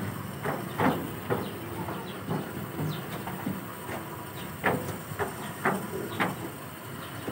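Irregular knocks and scrapes of a wooden coffin being lifted and slid onto the bed of a pickup truck by several men, over a steady hiss.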